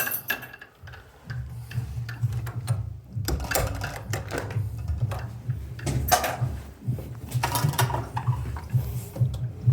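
A small power-tool motor running in pulsing stretches, with sharp clicks and knocks of metal hardware, as the bottom door lock's cylinder is taken out.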